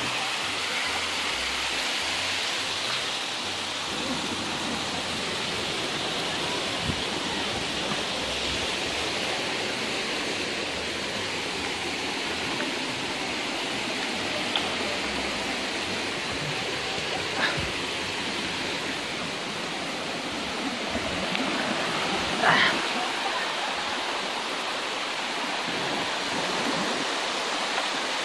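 Small waterfall cascading over rocks into a pool: a steady rush of falling water. A couple of brief sharper sounds stand out over it, one about two-thirds of the way in and the loudest near the end.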